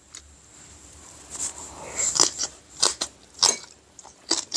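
A person chewing a mouthful of boiled pork close to the microphone. The chews begin about a second and a half in and come irregularly, roughly one every two-thirds of a second.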